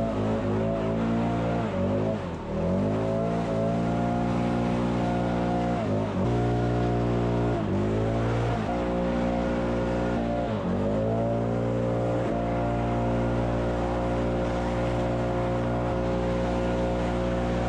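Small petrol engine of a garden power tool running at high throttle, the throttle let off and squeezed again several times in the first half so the pitch dips and climbs back, then held steady.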